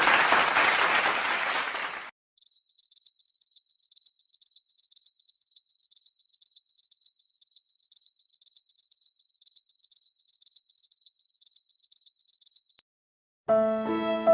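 Applause sound-effect clip ending about two seconds in, then a crickets sound effect: one high chirp repeated evenly about three times a second for some ten seconds, stopping abruptly. A sad violin music clip starts near the end.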